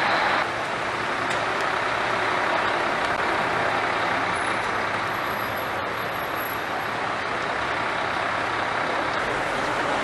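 Steady running noise of a fire engine, with its aerial ladder in use, mixed with wet street traffic. The level steps down slightly about half a second in.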